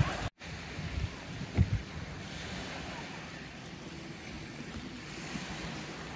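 Steady wash of sea surf on a sandy shore, with wind on the microphone. The sound cuts out for an instant just after the start.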